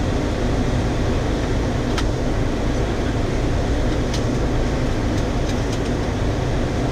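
Steady rushing noise of airflow and engines on the flight deck of a Boeing 737-400 on final approach with flaps 30. A few faint clicks sound about two seconds in, again about four seconds in, and three times between five and six seconds in.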